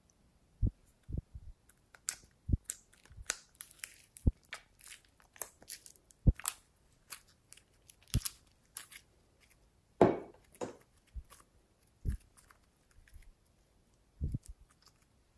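Glossy slime handled by hand: sticky pops and crackles as it is pulled out of its tray and squeezed, with a few soft knocks in between and one louder squelch about ten seconds in.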